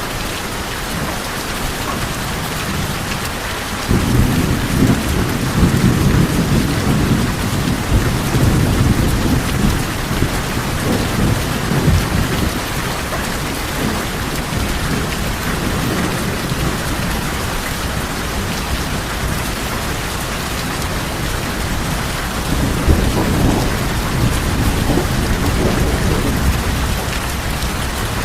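Steady rain falling on a tin roof, with low rolling thunder that swells about four seconds in and rumbles on for several seconds, then rumbles again near the end.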